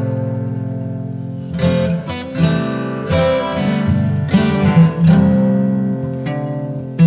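Background music: acoustic guitar strumming chords. One chord rings out and fades for about the first second and a half, followed by a run of fresh strums.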